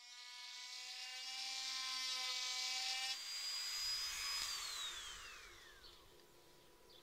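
Handheld electric rotary tool running against a wooden cross blank with an even motor hum for about three seconds. It then runs free with a single high whine, which falls steadily in pitch as the tool is switched off and winds down.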